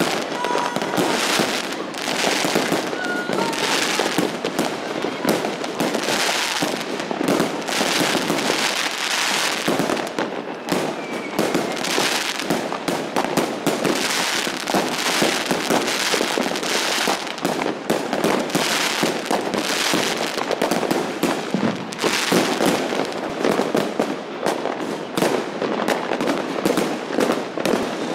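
Many fireworks and firecrackers going off at once: a dense, unbroken crackle of overlapping bangs and pops.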